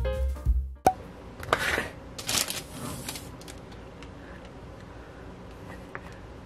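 Plastic bag and food packaging rustling and crinkling in a few short bursts as items are handled, with a sharp click about a second in.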